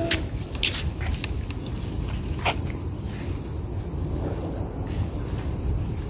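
Steady high-pitched drone of forest insects, over a continuous low rumble, with a few sharp clicks in the first couple of seconds.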